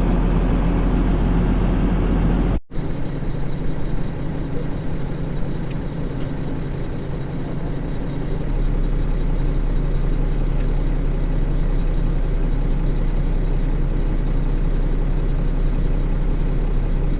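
Heavy farm machinery engine running steadily at a constant speed with a low hum. All sound cuts out for a moment about two and a half seconds in.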